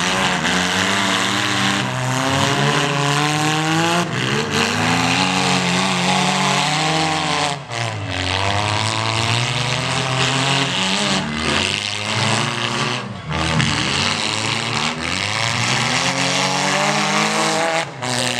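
Compact car engines in a mini-car demolition derby, revving hard over and over, their pitch rising and falling as the cars accelerate and back off.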